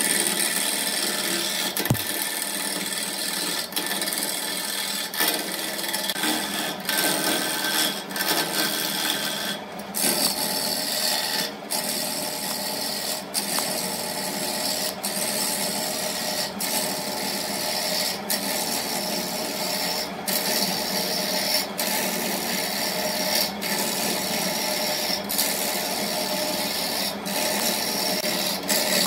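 Wood lathe spinning a large wooden blank while a hand-held turning tool cuts into it: a steady, rough scraping hiss of wood being peeled away as shavings.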